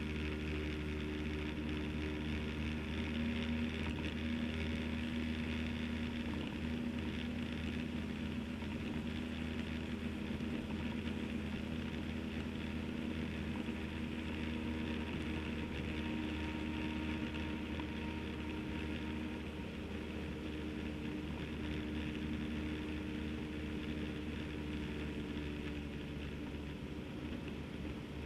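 Motorcycle engine running steadily at cruising speed, with an even rush of wind and road noise.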